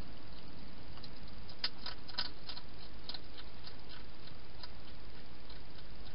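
Wild hedgehog feeding at its dishes inside a plastic feeding box: irregular small clicks and smacks as it eats, with a quick run of louder ones about two seconds in, over a steady hiss.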